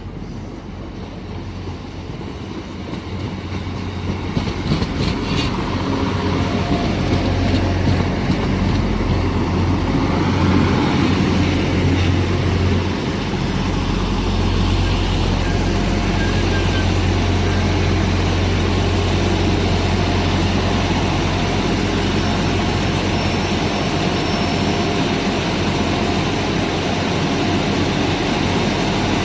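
Diesel multiple-unit trains: a Class 175 running into the platform and standing with its diesel engines running, while a Class 150 Sprinter draws in. The sound is a steady low engine hum over general rumble, growing louder over the first several seconds and then holding steady.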